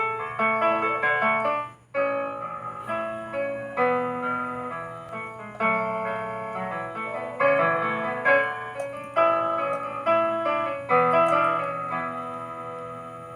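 Piano-voiced keyboard music: chords under a melody, with a short break about two seconds in.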